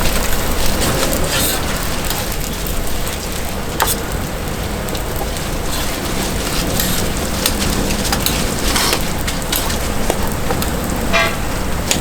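Hotteok (filled rice pancakes) sizzling in oil on a flat griddle, a steady dense crackle, with a few light clicks and taps from the cooking tools.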